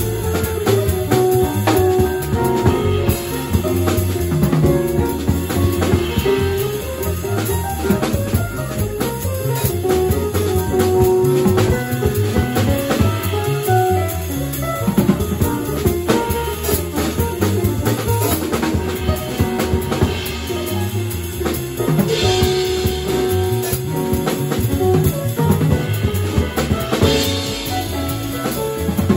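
Small jazz band playing live: drum kit with cymbals, upright bass walking low, and electric keyboard holding and moving between chords.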